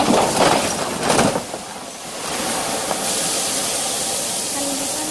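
A loaded semi truck crashing over onto its side: crunching impacts for about the first second and a half, then a steady loud hiss of steam venting from the wrecked cab.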